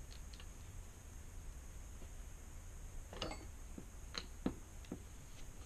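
A few small clicks and knocks from hand tools and parts being worked on a 66cc motorized bike engine's crankcase, a short cluster a little past three seconds in and the loudest about four and a half seconds in, over a low steady hum.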